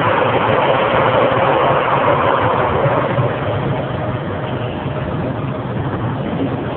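Forklift engine running steadily under a loud rushing noise, its note sinking slightly and the whole sound easing off a little past the middle.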